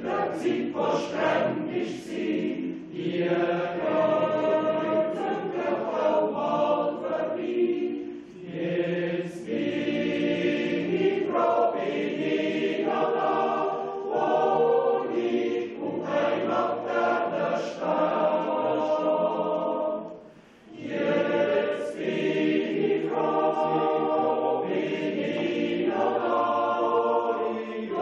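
Swiss yodel choir of mostly men's voices singing a Jodellied in parts, in long held phrases with short breaks between them; the longest break comes about twenty seconds in.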